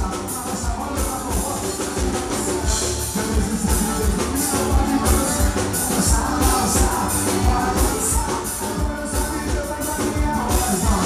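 Forró music with a steady drum beat.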